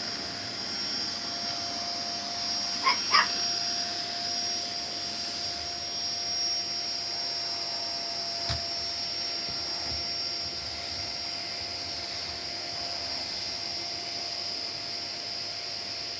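Vacuum cleaner running steadily with a constant whine, while a dog barks at it with two quick yips about three seconds in. There is a single knock a little past the middle.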